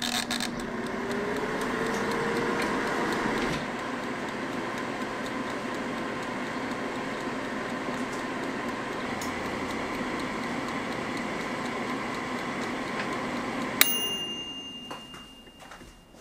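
Queenmade air fryer running: its fan spins up with a rising whine, then whirs steadily. About fourteen seconds in, the mechanical timer goes off with a click and a single bell ding, and the fan winds down as the cooking cycle ends.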